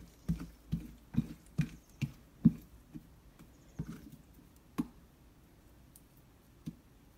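A hand slapping and working soft, sticky sfenj dough in a plate: a run of wet slaps, about two or three a second, that thin out after about four seconds, with a single slap near the end.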